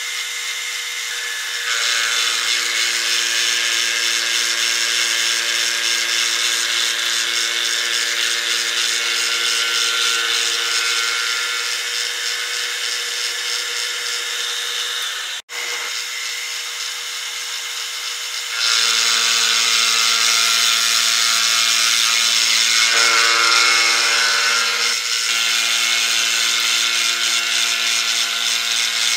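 Milling machine fly-cutting a metal grinder tool rest with a face mill holding a single carbide insert: a steady spindle hum under a loud, even noise of the cut. The noise gets louder about two seconds in as the insert bites, breaks off briefly about halfway through, and comes back louder for the rest.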